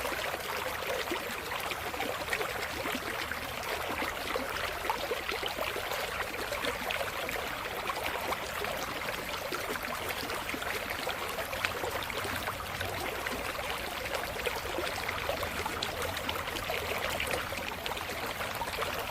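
Water running steadily into an open-air hot spring bath, with an even splashing trickle.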